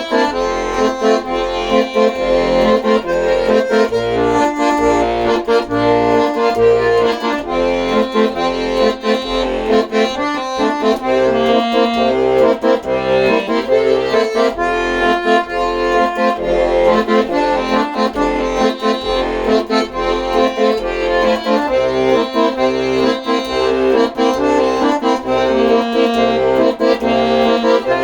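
Accordion playing an instrumental tune: a melody of held notes over a steady, evenly pulsing bass.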